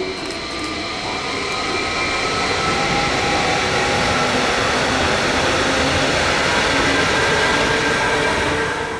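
Stadler FLIRT electric multiple unit running past through the station: wheel-on-rail noise with the steady whine of its electric drive, growing louder as it draws level.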